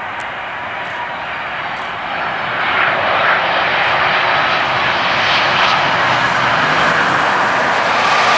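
Airbus A330-200 twin-engine jet airliner landing, its engine noise a steady rushing roar that grows louder about two and a half seconds in as the aircraft passes close by and flares toward touchdown.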